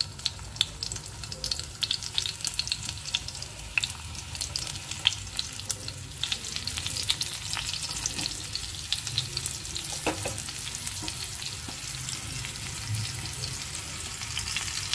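Stuffed ridge gourd pieces frying in hot oil in an aluminium pan, sizzling with many small crackling pops as more pieces are laid in.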